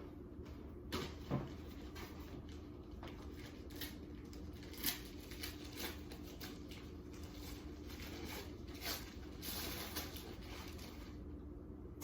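Gift wrapping rustling and crinkling as presents are handled and unwrapped, with scattered light knocks and a longer rustle near the end.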